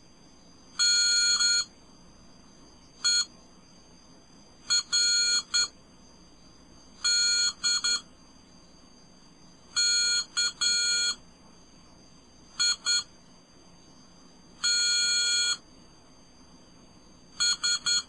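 Piezo buzzer sounding hand-keyed Morse code: steady beeps in short dits and long dahs, one letter group about every two seconds. The eight letter groups spell out NERDKITS (-. / . / .-. / -.. / -.- / .. / - / ...).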